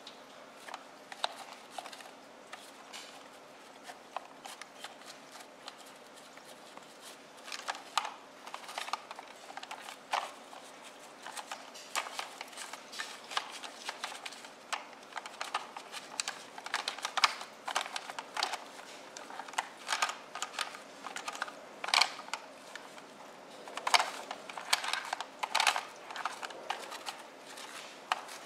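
Red plastic toy monster truck handled and wiped with a cloth: irregular clicks and knocks of hard plastic and rubber wheels, with cloth rubbing, coming thicker and louder in the second half.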